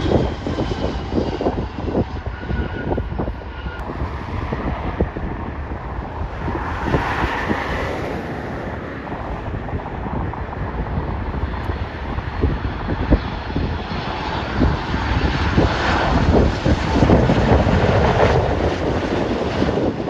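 Jet airliner passing low overhead: a steady engine rumble with a thin whine that falls in pitch over the first few seconds.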